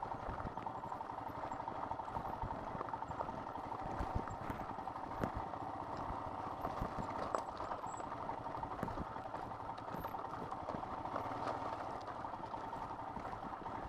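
Royal Enfield Himalayan's single-cylinder engine running steadily at low speed on loose gravel, with frequent clicks and knocks of stones and the bike rattling over the rough surface.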